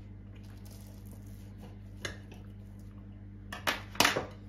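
Cutlery clinking and scraping on a plate, with a few sharp clinks in the second half, the loudest near the end, over a steady low hum.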